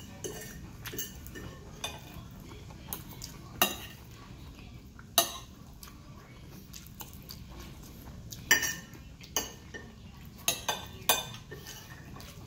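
Metal knife and fork scraping and clinking against a plate while cutting and gathering food, with scattered sharp clinks, the loudest about 3.5, 5 and 8.5 seconds in and several more close together near the end.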